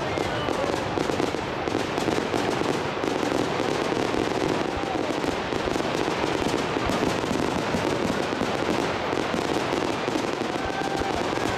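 Fireworks display going off: a dense, continuous run of rapid pops and crackles from low-bursting gold shells and comets.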